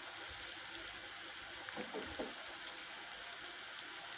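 Sliced leeks frying in a pan, a faint steady sizzle, with a couple of soft small knocks about two seconds in.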